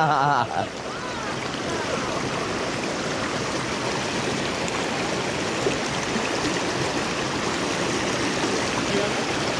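Mountain stream water rushing steadily over rocks in pocket water.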